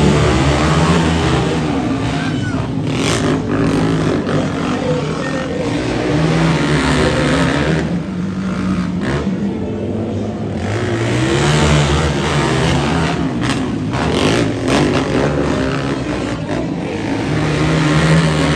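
Several quad bike engines running hard and revving as they race on a dirt track, pitch rising and falling with the throttle. They ease off about halfway through, then climb again.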